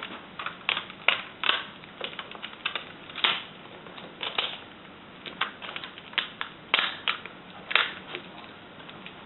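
Irregular light clicks and taps of hands working a laptop LCD panel and its taped display cable free of the lid, a few sharp ticks a second with brief scrapes between.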